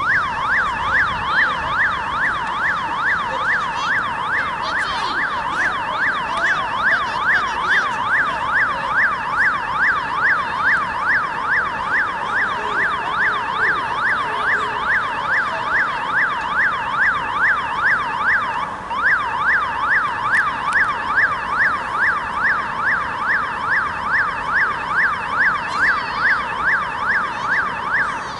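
Emergency vehicle siren on its fast yelp setting, its pitch sweeping up and down rapidly several times a second. It starts suddenly, dips briefly about two-thirds of the way through, and stops near the end.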